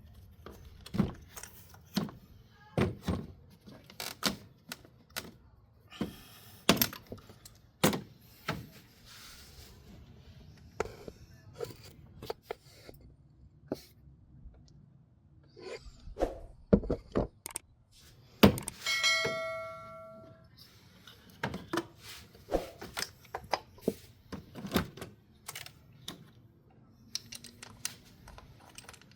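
Hand tools and metal parts being handled: scattered sharp clicks and knocks, irregular, with one metallic clang about two-thirds through that rings on for about a second and a half.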